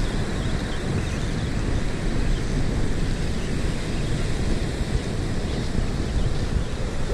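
Wind buffeting the microphone over the wash of breaking surf: a steady, rumbling noise.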